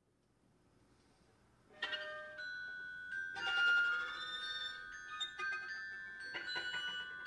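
Chamber music for strings and mallet percussion: after a near-silent start, struck mallet notes ring out over high sustained tones from about two seconds in, with more struck notes every second or two.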